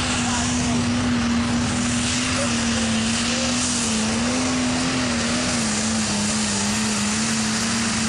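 A tractor-pulling tractor's engine running flat out under load as it drags the weight sled. Its loud, steady pitch wavers slightly and sags a little near the end.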